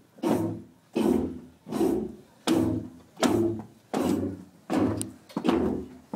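Dance music played over a speaker, dominated by a heavy, even drum beat of about one hit every three-quarters of a second.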